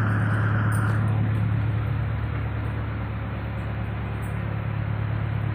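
Boat engine running with a steady low hum, under a constant wash of noise.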